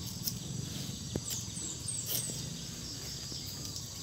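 Steady high buzzing of insects in the background, with a few short high bird chirps about a second and a half in. Faint clicks and rustles come from a clump of freshly dug galangal being handled.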